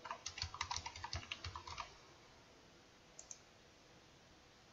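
Fast typing on a computer keyboard: a quick run of keystrokes for about two seconds, then two more clicks a little after three seconds in. It is faint throughout.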